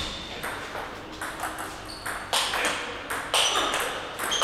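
Table tennis rally: the ball clicking off the table and the two players' bats in turn, a sharp click about every half second, each with a short high ping.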